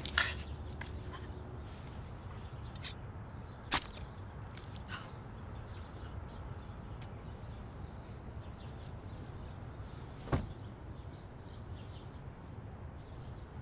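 Steady outdoor background with faint bird chirps, broken by a few short, sharp knocks, the loudest nearly four seconds in and again about ten seconds in.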